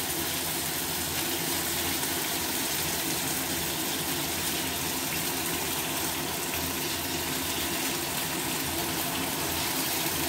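Battered chicken kabab pieces sizzling steadily in hot oil in a shallow pan.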